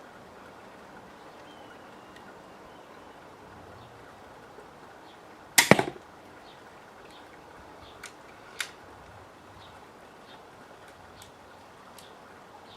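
80 lb pistol crossbow firing a bolt: one loud, sharp snap of the released string and limbs about halfway through, followed two to three seconds later by two softer clicks.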